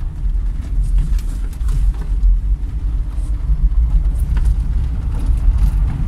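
Old car driving on a gravel dirt track, heard from inside the cabin: a steady low rumble of engine and road noise with scattered faint clicks and rattles.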